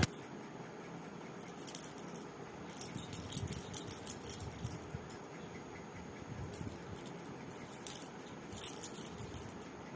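Faint, scattered light clicks and rattles, a few at a time, over a steady low background hum.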